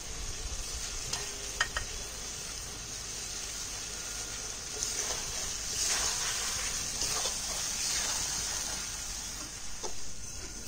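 Spiced masala sizzling in a pan as raw khoyra fish pieces are laid on top of it, with a few light clicks of a utensil against the pan. The sizzle grows louder for a few seconds around the middle.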